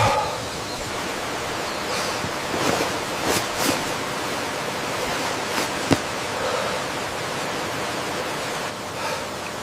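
Steady rushing roar of water falling at a jungle waterfall, with a few faint knocks and one sharp click about six seconds in.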